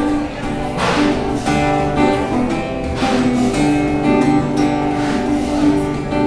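Acoustic guitar strumming chords in an instrumental passage between sung lines of a song.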